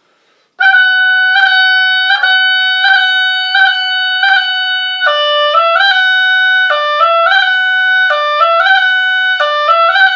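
Oboe playing a bagpipe-style repeated F sharp ornament, slurred without tonguing and with flat fingers: a held high F sharp broken every three quarters of a second or so by quick finger flicks, so it sounds like several F sharps in a row. From about halfway, a short figure drops lower and steps back up to the F sharp four times.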